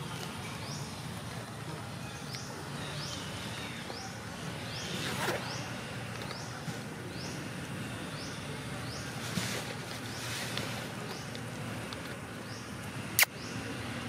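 Outdoor ambience with a short rising chirp repeating about every three quarters of a second, and a single sharp click near the end.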